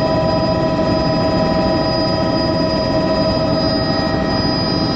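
Helicopter in flight heard from inside the cabin: a steady, loud engine and rotor drone with a constant whine of several steady tones over a dense low rumble.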